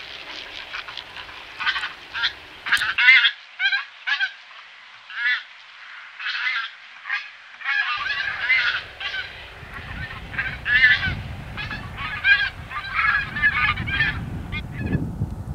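Bean goose honking: a long run of short calls in irregular succession, roughly one every half second to a second, with a low rumble underneath from about eight seconds in.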